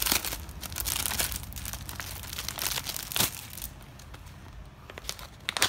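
A foil-and-plastic pouch crinkling as hands open it and pull at the packaging, with a sharp click about three seconds in. The crinkling grows quieter near the end.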